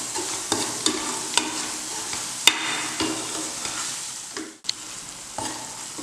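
Ground onion, chilli and mint masala paste sizzling in oil in a nonstick pan while a spatula stirs and scrapes through it, with sharp clicks of the spatula against the pan. The sound cuts out for an instant about four and a half seconds in and comes back quieter.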